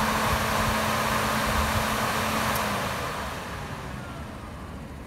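Chevy Impala's electric radiator cooling fan running with a steady rush of air and a hum, then cut off a little under three seconds in and winding down, its whine falling in pitch as it slows.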